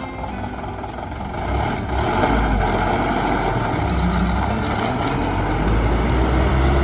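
Heavy bus engine running close by, growing louder about one and a half seconds in as the bus moves off, with road and mechanical noise over the low rumble.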